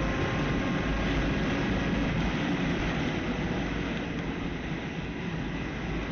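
Motorcycle on the move: a steady rush of engine, wind and road noise.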